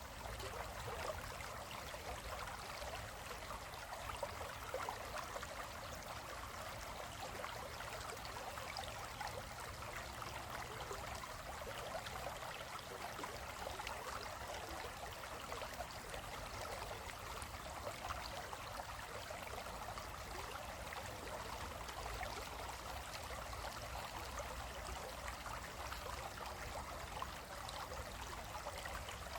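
Shallow stream flowing steadily over rocks, a continuous babbling and trickling of water.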